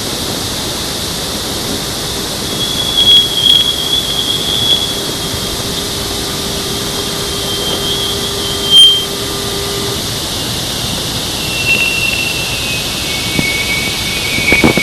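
Voyager plasma-wave data from the edge of the heliosphere turned into audio: a steady hiss with thin whistling tones that slide slowly lower in pitch. A low steady hum under it stops about two-thirds of the way through, and there are brief louder swells around three and nine seconds in.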